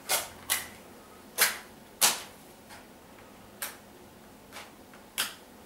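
Small flames being struck alight one after another: about seven sharp strikes, unevenly spaced, each trailing off in a short hiss, the loudest two about a second and a half to two seconds in.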